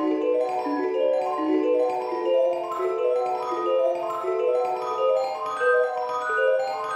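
Background music: a light, cheerful tune played on mallet percussion, a steady run of short notes stepping up and down.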